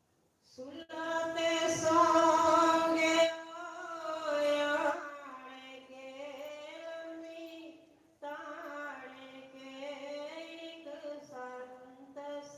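A woman singing a devotional hymn into a microphone in long, held notes that step and glide in pitch. It is loudest in the first few seconds and pauses briefly about eight seconds in.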